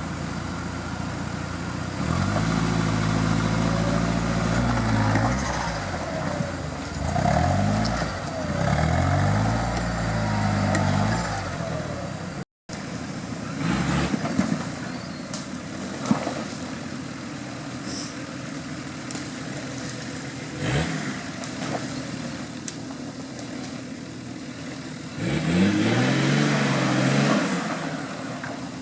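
Off-road 4x4's engine revving hard, rising and falling in pitch over and over as it is worked through a trial section. After a brief dropout about halfway it runs quieter with a few sharp knocks, then revs up again near the end.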